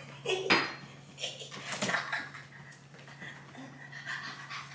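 Light clinks and knocks of small hard objects being handled as a gift is opened, a few sharp ones about half a second and two seconds in, over a faint steady low hum.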